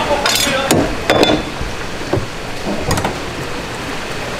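A few separate knocks and thuds on a thick wooden chopping block as a mullet is handled with a knife, most of them in the first second or so, over a steady background noise.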